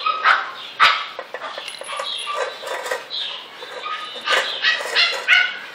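Dogs barking: short, high-pitched barks, several in quick succession about four to five seconds in.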